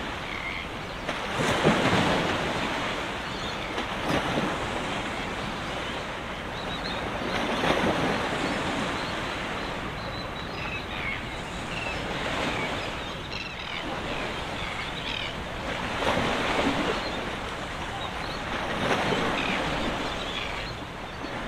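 Small waves washing and splashing at the water's edge, swelling every few seconds, with wind buffeting the microphone.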